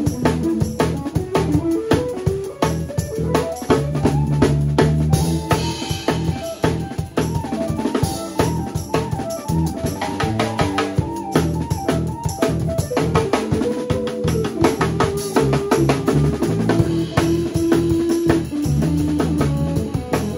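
Live funk band jamming: a busy drum kit with snare and bass drum, a walking bass line, and a melodic lead line on top with some longer held notes in the second half.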